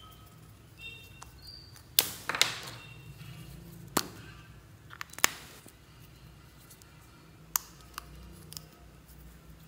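Sharp plastic clicks and snaps from small glitter tubes and their caps being handled and opened, several times, with a short hiss of glitter shaken just after the loudest snap about two seconds in.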